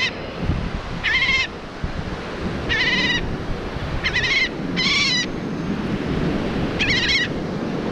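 A seagull tangled in fishing line gives about six harsh, wavering distress calls, each about half a second long, a second or two apart. Surf and wind run underneath.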